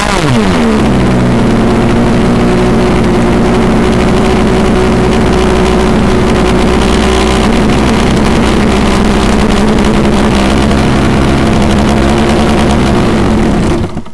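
O.S. 46AX two-stroke nitro glow engine of an RC trainer plane, heard close up from the plane's onboard FPV camera: its pitch dips and comes back up in the first half-second, then it idles steadily, and it cuts off abruptly just before the end.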